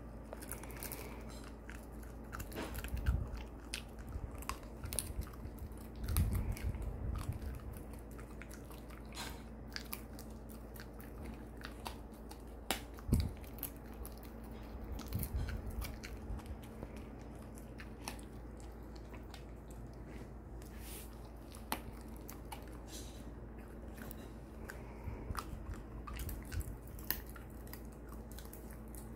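A Shiba Inu chewing a large bone-shaped chew treat with its side teeth: irregular crunches and clicks of teeth coming in clusters, the sharpest crunch about halfway through.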